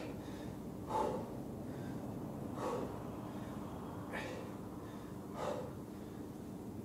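A man's sharp breaths in time with seated in-and-out crunches, four in all about a second and a half apart, over a faint steady hum.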